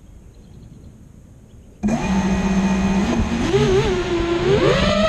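Brushless motors and propellers of an Emax Nighthawk 200 FPV racing quadcopter whining, cutting in suddenly about two seconds in, the pitch rising and falling with the throttle.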